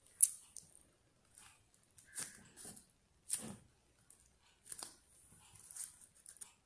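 A piece of cardboard handled and pressed into place: a sharp tap just after the start, then scattered short rustles and scrapes.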